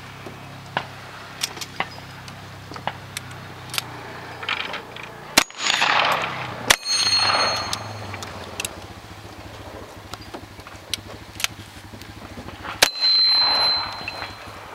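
Gunfire from a cowboy action shooting stage: a string of sharp cracks, with three much louder shots about five and a half, seven and thirteen seconds in, each followed by a short echo. After the last two, steel targets ring with a thin high tone.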